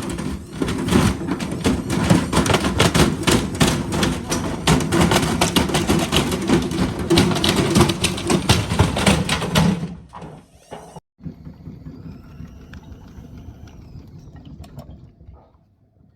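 Hotpoint FMG723 washing machine being run to destruction, banging and clattering hard with dense rapid knocks for about ten seconds. It then cuts off abruptly to a quieter stretch with a faint whine that rises and falls.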